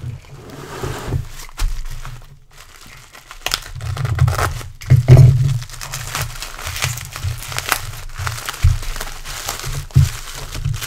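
Plastic bubble wrap being unwrapped by hand, crinkling and rustling in an irregular run of crackles, loudest about five seconds in.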